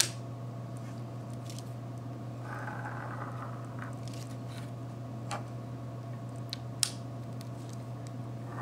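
Pencil scratching briefly along a ruler on a glossy magazine page, with a few light taps, over a steady low electrical hum.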